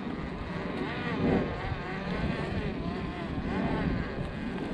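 Hobbywing Quickrun Fusion Pro brushless motor of an RC rock crawler whining, its pitch rising and falling several times as the throttle is worked.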